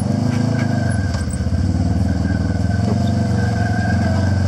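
Polaris RZR side-by-side UTV engine running at low revs as it crawls over rock ledges, the revs swelling and easing slightly.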